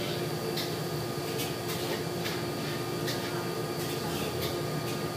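Steady mechanical room hum with several fixed tones, with about nine faint, short clicks scattered through it as a small child eats watermelon pieces from a bowl.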